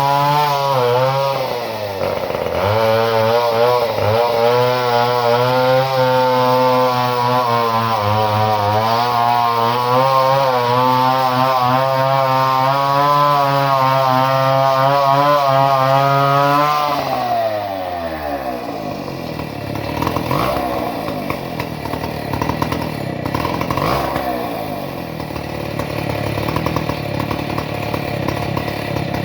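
Two-stroke chainsaw engine running at high revs with its speed wavering a little, then about two-thirds of the way through dropping to a lower, rougher idle. It is running after an ignition modification.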